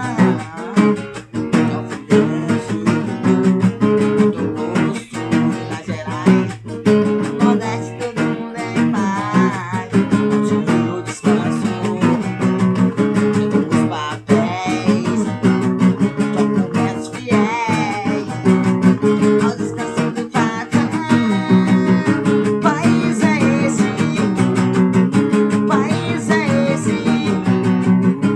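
Music with strummed and plucked acoustic guitar, with some singing or lead melody over it.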